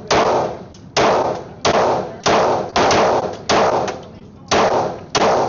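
Glock 23 Gen 3 pistol firing .40 S&W rounds in a steady string, about eight shots in quick succession, each with a short echo.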